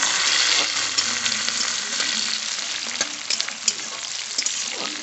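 Onion, green chilli, ginger and curry leaves sizzling in hot oil in a metal kadhai while a spatula stirs them. The sizzle slowly fades, with a few sharp ticks in the second half.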